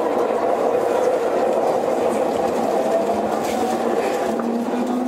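JR E231-series electric train running: a steady rumble with the whine of its traction motors, and a low tone that begins to rise in pitch near the end as the train picks up speed.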